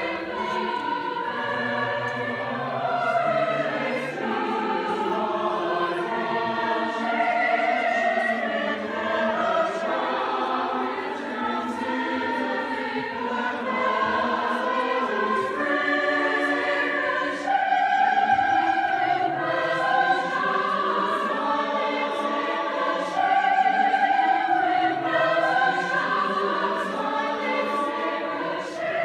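A large mixed choir of women's and men's voices singing a classical choral piece in several parts, holding long chords that move from note to note.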